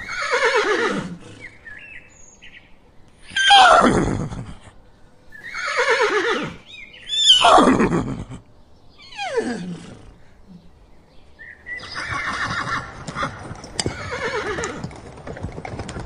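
Horses whinnying, about five loud whinnies that each fall in pitch, spaced a second or two apart. After that comes a softer, noisier stretch with light clicks.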